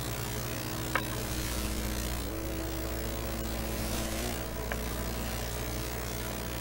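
Steady hum and hiss of a worn home-video tape, with a faint mechanical whir whose pitch shifts a couple of times. Two sharp clicks, about a second in and again about two-thirds of the way through, where the recording breaks off.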